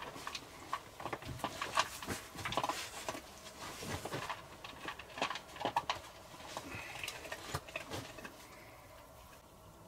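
Irregular rustling and light knocks of a person shifting and settling on a log bunk with a sleeping mat, dying away near the end.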